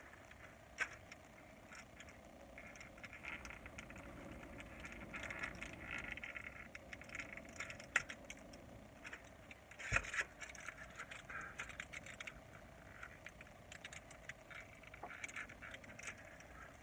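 Faint handling noises from objects worked in a lap inside a car: light rustling and scraping with many small clicks, a sharp click about eight seconds in and a dull knock about ten seconds in.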